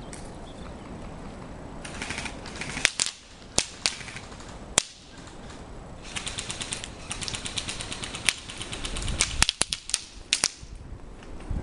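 Airsoft guns firing: rapid bursts of clicks, with sharp single cracks between them.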